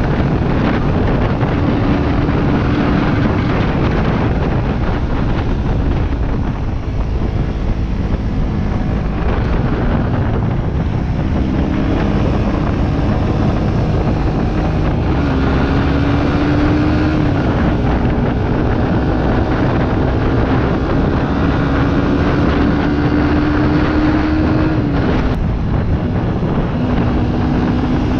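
Motorcycle engine cruising at about 70 km/h, with heavy wind rumble on the microphone. The engine note climbs slowly and then drops sharply a few seconds before the end.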